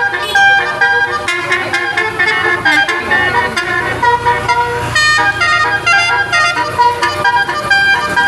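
Telolet bus horn, a multi-tone Basuri air horn, playing a quick tune of short notes that change pitch in steps, loud and continuous.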